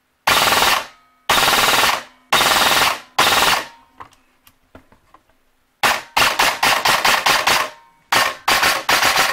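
Krytac Mk18 airsoft electric gun firing on full auto: four short bursts, then a run of quicker, shorter shots near the end. The gearbox is slightly screechy, which the owner believes motor height and bevel shimming could improve.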